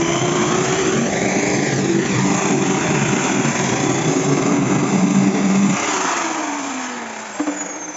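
Power grinder working wood, running steadily, then switched off about six seconds in, its pitch falling as it winds down, followed by a short click.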